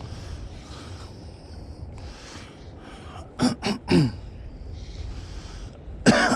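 A man coughing: three quick coughs about halfway through, then two more near the end.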